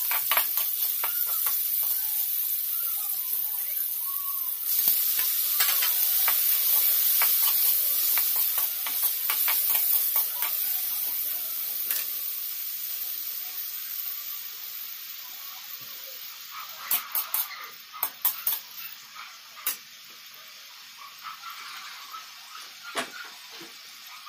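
Carrots, garlic and tomatoes sizzling in hot oil in a wok as they are stir-fried with a spatula. The sizzle steps up about five seconds in, then fades through the second half, with a few sharp clicks of the spatula against the wok near the end.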